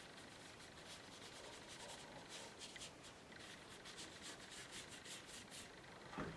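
Faint scratching of a paintbrush worked across Fabriano 130 lb watercolour paper, a quick run of short rubbing strokes. A soft knock comes near the end.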